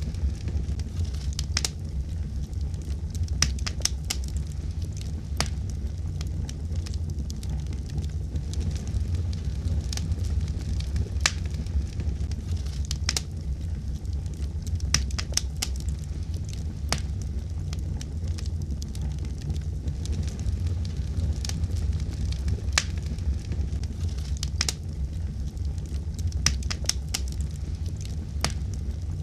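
Wood fire crackling: irregular sharp pops and snaps over a steady low rumble of the burning fire.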